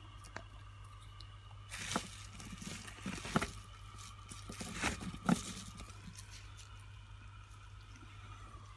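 A handful of sharp clicks and some rustling, about two to five and a half seconds in, over a steady low hum.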